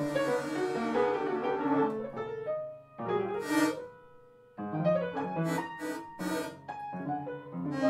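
Free-jazz piano music played over the footage: stacked chords and notes, with a short lull about four seconds in before the playing resumes sharply.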